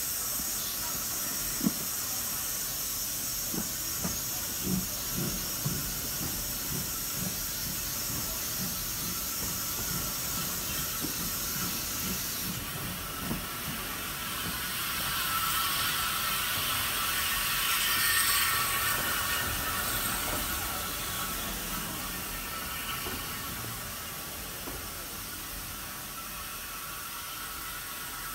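A steam-hauled train on the move, heard from the carriage window: the locomotive's steam hiss over irregular low knocks from the wheels on the track. The high hiss cuts back suddenly a little under halfway through, and a louder rush with ringing tones swells about two-thirds of the way in, then eases.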